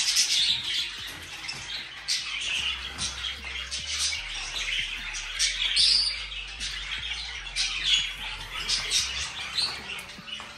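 About fifty caged budgerigars chattering and squawking at once, a constant stream of high, overlapping chirps and calls. The noise is fairly loud.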